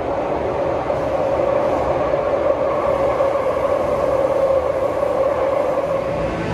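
Interior running noise of a MAFERSA-built Metrô-DF Série 1000 electric multiple unit under way: a steady rumble with a steady mid-pitched whine.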